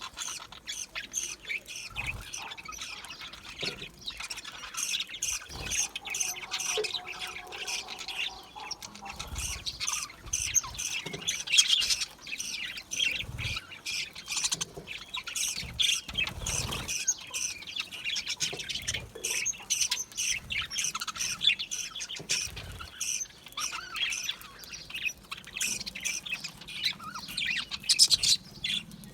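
A flock of budgerigars chirping and squawking in a dense, continuous chatter of short high calls.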